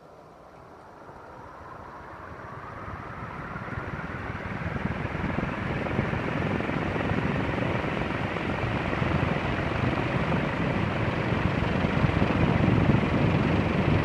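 Leslie Locke "Play it Again Sam" DF-361 ceiling fan speeding up: the whoosh of its spinning blades grows steadily louder over the first six seconds or so, with a faint rising motor whine early on, then runs steady.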